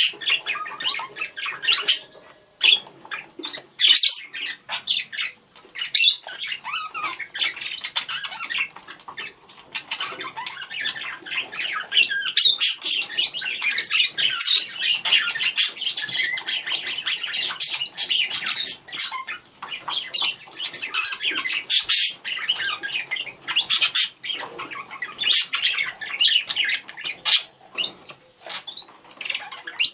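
Budgerigars calling to each other: continuous chattering warble with sharp chirps, squawks and clicks.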